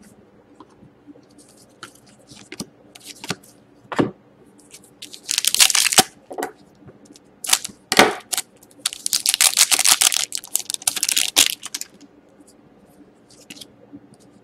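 A foil trading-card pack being torn open and crinkled, in loud crackling stretches through the middle, after a few light taps and a knock of cards being handled.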